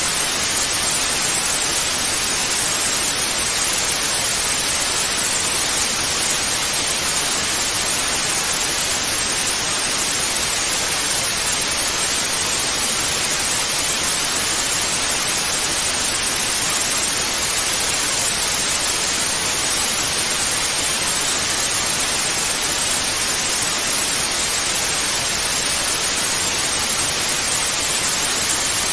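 Television static: a steady, even hiss, strongest in the upper range and unchanging throughout.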